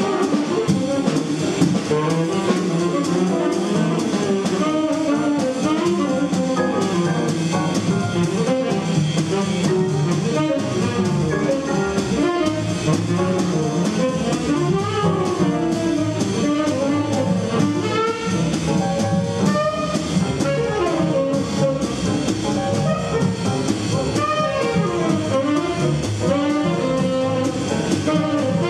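Tenor saxophone playing a fast, busy blues line over piano, upright bass and drum kit in a small jazz band.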